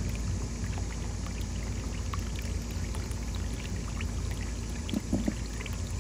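Water from a garden hose running steadily into a pond.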